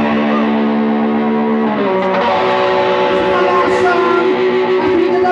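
Distorted electric guitar playing a held chord that changes to another held chord about two seconds in, starting off a punk rock song.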